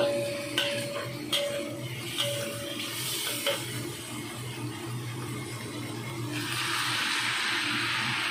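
Scallops and shrimp stir-frying in a wok: a spatula strikes and scrapes the wok about five times in the first few seconds, each strike ringing briefly, over a steady sizzle and a low hum. About six seconds in the sizzle grows louder and steadier.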